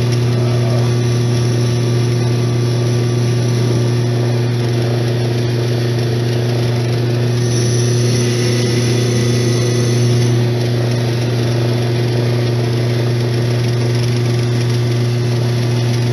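Lathe motor running with a steady hum while a rag is held against a spinning antique Singer sewing machine handwheel to polish it. A faint high whine joins for a few seconds about halfway through.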